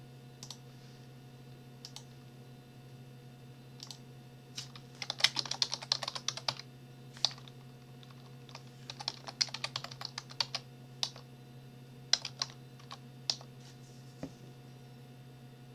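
Typing on a computer keyboard: two quick runs of keystrokes, with single key presses scattered between them.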